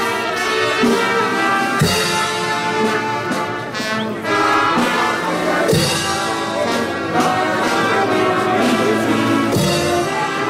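Brass band with trumpets and trombones playing a procession march, a bass drum struck about every four seconds.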